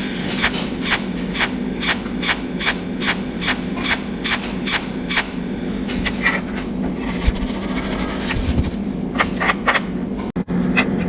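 Cold welding machine firing spot-weld pulses, a sharp crackling tick with each pulse, about two to three a second, over a steady low hum. After about five seconds the ticks thin out, then a quick run of them comes near the end.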